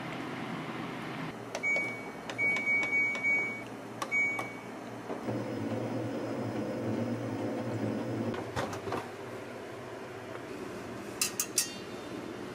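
An appliance's control panel beeping as buttons are pressed: several short, high, even beeps with clicks. Then a motor hums for about four seconds and stops, and a quick cluster of sharp clicks follows near the end.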